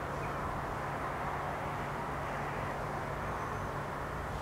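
Steady rushing drone of a train approaching the level crossing, growing slightly louder.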